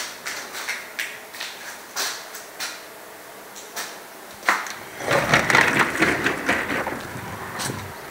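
Footsteps clicking on a tiled floor, about three a second, then a knock and a glass sliding door rumbling along its track for a couple of seconds.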